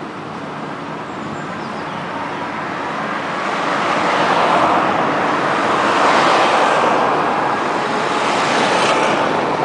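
Tram under way, heard from inside the car: a steady rumble and hiss of wheels on rails, growing louder about a third of the way in as it picks up speed, with a faint whine in it.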